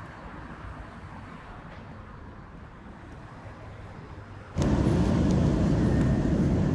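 Street traffic noise from a city pavement. About four and a half seconds in, a much louder steady rushing noise, heaviest in the low end, cuts in suddenly.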